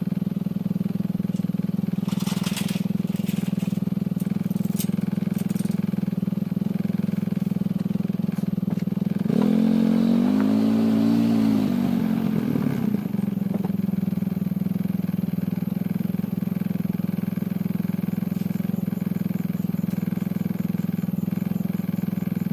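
Small vehicle engine running steadily, with a few light clatters a couple of seconds in. About nine seconds in a long pitched sound rises and falls for about four seconds over the engine.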